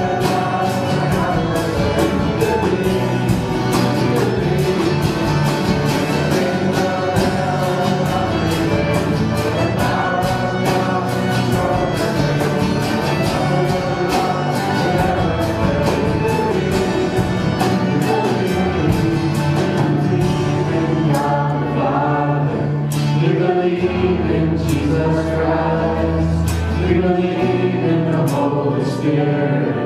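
Church worship band playing a song with drum kit, keyboard, violin and two acoustic guitars, and voices singing along.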